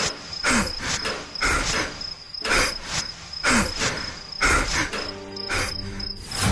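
Crickets chirping steadily, with a digging tool striking into soil about once a second.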